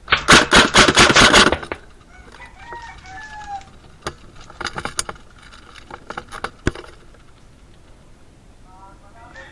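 Airsoft gun firing a rapid burst of about eight shots a second for a second and a half, followed by scattered single shots and short strings. A rooster crows in between.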